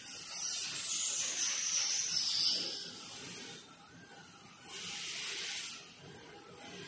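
A hiss lasting about three and a half seconds, then a second, shorter hiss of about a second a little before the fifth second.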